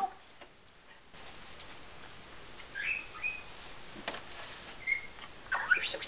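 Congo African Grey parrot giving a few short whistled chirps, scattered and spaced apart, the loudest call near the end.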